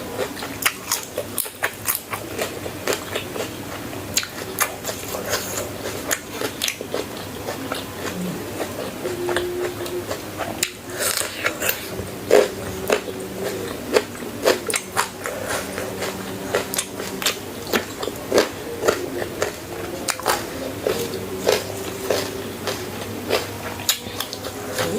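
Close-miked biting and chewing of crunchy food, with many irregular crisp crunches.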